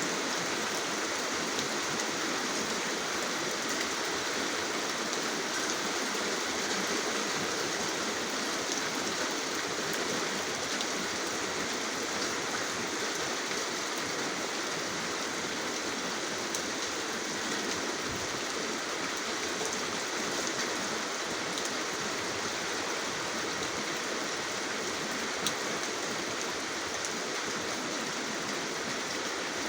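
Steady rainfall: a dense, even hiss of falling rain with faint ticks of single drops scattered through it.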